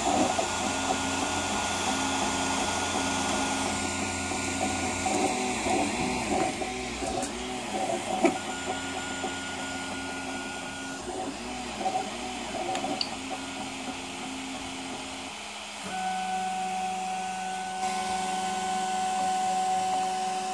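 Stepper motors of a Prusa i3 MK2S 3D printer whining as they drive the print head and bed through their moves, the pitch jumping with each move. About three-quarters through it changes to a steadier, higher tone.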